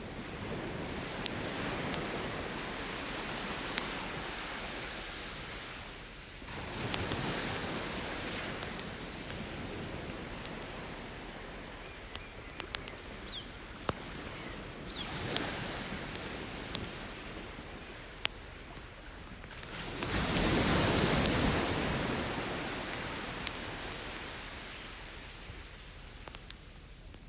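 Ocean waves breaking and washing up the beach in slow swells, the loudest one about two-thirds of the way through, with a wood campfire crackling in scattered sharp pops.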